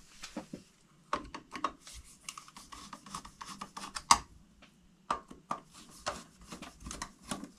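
Screwdriver turning out the mounting screws of a plastic ceiling light fixture: a run of short scrapes and clicks, with a sharper click about four seconds in.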